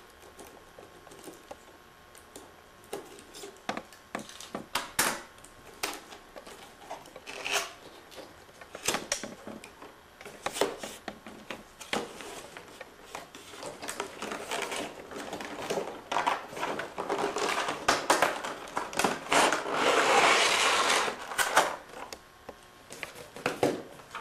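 Packaging being handled: scattered clicks and scrapes as a cardboard box is cut and its flap opened, then clear plastic clamshell packaging crinkling and scraping against the cardboard as it is slid out, thickest and loudest a few seconds before the end.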